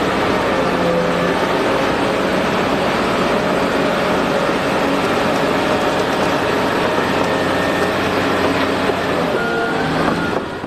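Komatsu D475A bulldozer running steadily under load: a loud, continuous heavy diesel engine and machinery noise.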